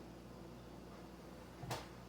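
Quiet room tone with one short, soft knock near the end.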